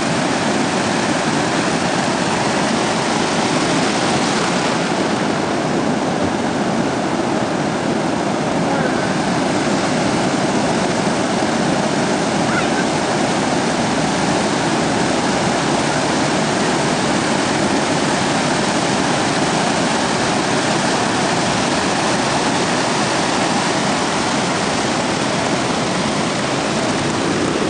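Heavy ocean surf breaking on the shore: a steady, loud rush of waves.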